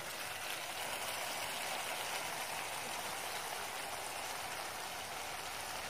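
Pot of meat and tomatoes boiling on a gas stove, giving a steady bubbling hiss; the tomatoes have cooked soft.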